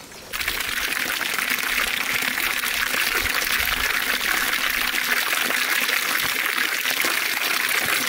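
Water pouring in a steady stream from a wooden spout and splashing into a wooden trough of water.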